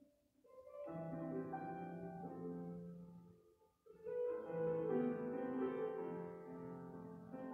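High-school choir singing held chords in a slow choral piece, with a short break a little past halfway before the next phrase comes in louder.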